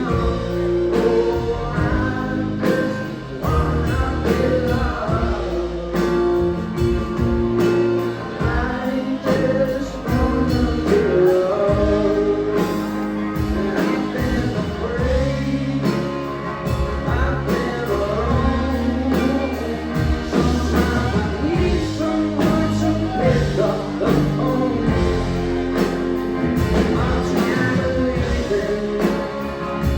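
Rock band playing a song live, with singing over the band.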